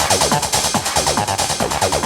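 Techno music with a fast, driving beat: quick falling pitch sweeps repeat about four times a second over a steady hissing top end.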